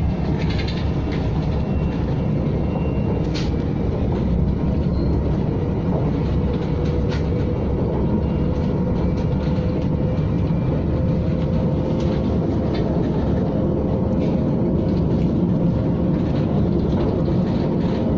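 KTM ETS electric train running steadily: a continuous rolling rumble with a faint steady hum and a few light clicks.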